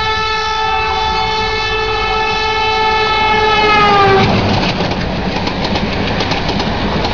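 Train horn blown in one long steady blast that sags slightly in pitch and cuts off about four seconds in, followed by the rumble and rhythmic clickety-clack of train wheels running over the rails.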